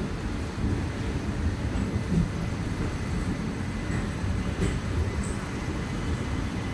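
Falaknuma Express passenger coaches rolling past a platform as the train departs: a steady low rumble of wheels on the track.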